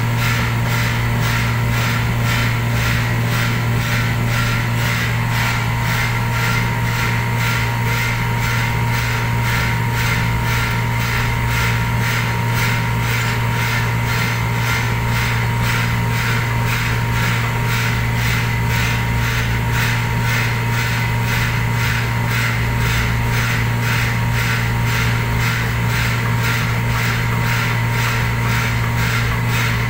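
Handheld power scrubber running against ceramic wall tiles: a steady motor hum with a fast, even scrubbing rhythm over it.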